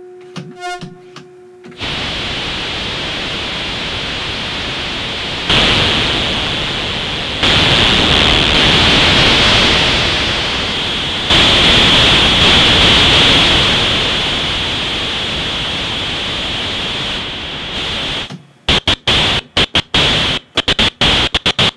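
ARP 2600 synthesizer noise generator: after a few short synth tones, a loud, steady hiss, brightest high in the treble, that steps louder a few times. Near the end it is chopped into rapid short bursts as keys are played.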